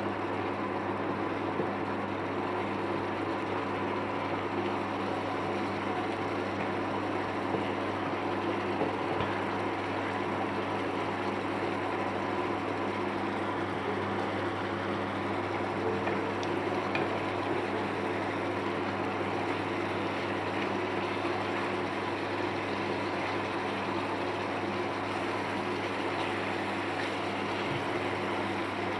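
Coconut-mustard fish curry gravy bubbling steadily at a simmer in a pan, with a steady hum underneath.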